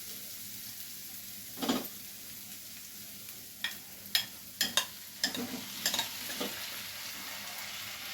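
Chicken pieces and spice masala sizzling steadily in oil in a pan as they are stirred together, with a spatula knocking and scraping against the pan several times in the middle. The masala has been fried down until the oil is starting to separate.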